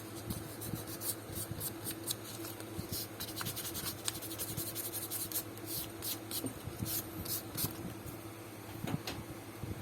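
Fine 600-grit sandpaper rubbed by hand over scuffed leather, in short, irregular scratching strokes.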